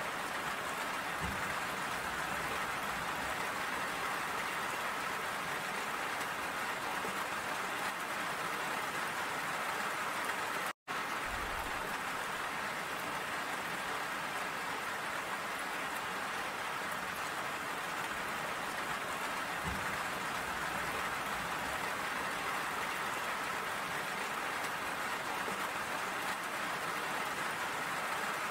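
Steady rain falling, an even hiss of drops, cut off to silence for a split second about eleven seconds in.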